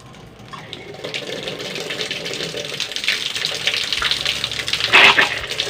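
Water gushing from a PVC garden tap as it is turned open, the stream growing louder over the first seconds as the flow builds, with a brief louder burst about five seconds in.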